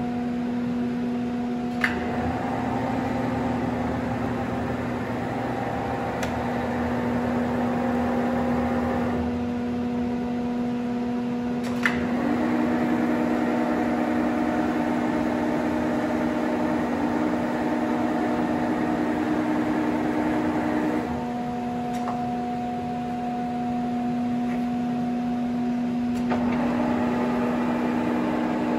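Union BFT 90 CNC table-type horizontal boring and milling machine running with a steady hum. An axis feed drive whines in three stretches, starting about 2, 12 and 26 seconds in, each at its own pitch as the machine moves. Sharp clicks come about 2 and 12 seconds in.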